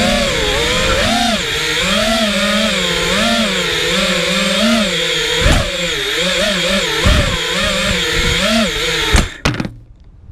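FPV quadcopter's motors and propellers whining, the pitch rising and falling with the throttle. The motor sound cuts off suddenly about nine seconds in.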